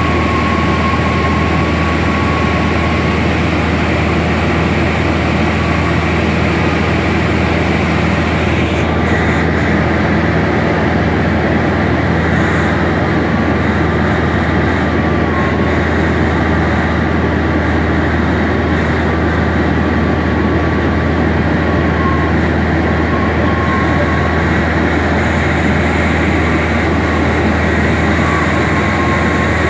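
Airplane engine noise heard inside the cabin in flight: a loud, steady drone with a deep hum underneath and a thin, slightly wavering whine on top.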